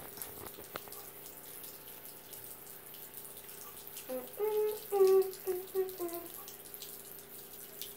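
Steady hiss of water running from a bathroom tap into the sink, with a voice sounding briefly for about two seconds midway.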